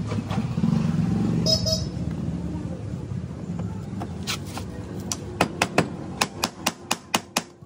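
Low rumble of street traffic, then a ratchet wrench clicking in a quick run of about four clicks a second as a nut at the Scooty Pep's rear wheel hub is turned.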